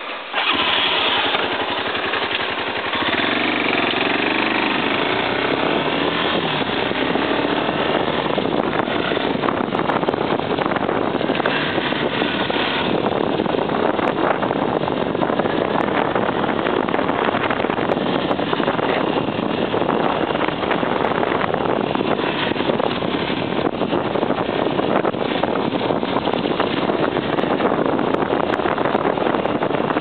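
Motorcycle pulling away about half a second in and then riding at a steady pace on a gravel road, its engine running under heavy wind rush on the microphone.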